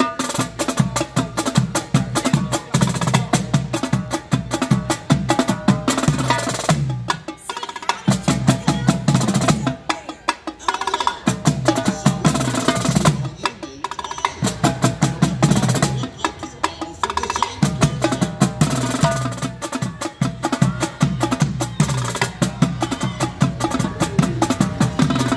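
Marching drumline of two snare drums and a set of tenor drums playing a fast drum cadence, with a few short breaks.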